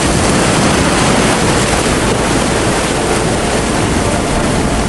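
Loud, steady rushing of floodwater and heavy rain, an even noise with no breaks.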